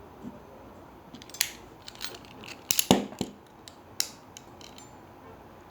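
Metal clicks and clacks from a small Irwin Vise-Grip locking-plier multitool being worked by hand as it is unclamped and its adjusting screw loosened. A handful of sharp clicks, the loudest a clack about three seconds in.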